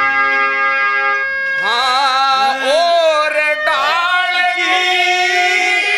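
Haryanvi ragni performance: held accompanying instrument notes, then a man begins singing about one and a half seconds in, his voice sliding and wavering in pitch over the music.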